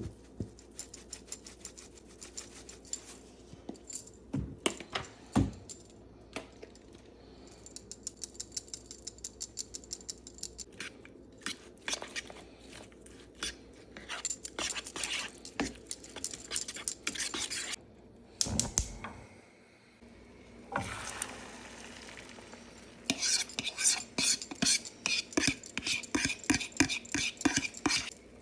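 Kitchen utensils clinking and knocking against dishes and pans, with runs of quick, even strokes of stirring in a bowl.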